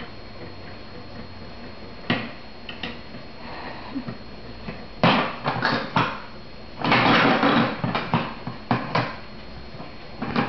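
Large plastic building blocks knocking and clattering as they are handled and pressed onto a plastic baseplate. A few separate clicks come first, then a busier run of clatter from about five seconds in, loudest a little after the middle.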